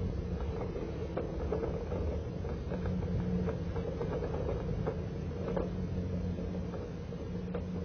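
Pickup truck engine running steadily at low speed while towing a trailer loaded with a boat dock section over a rough dirt track. Frequent light knocks and rattles come from the load and trailer.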